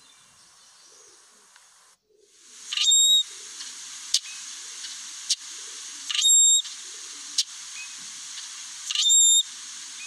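Brewer's blackbird giving its creaky, squeaky song three times, about three seconds apart. Each is a quick upward slur into a shrill held squeal. Short sharp call notes come in between. Before that, for about two seconds, there is only a faint hiss with a soft chirp, which cuts off abruptly.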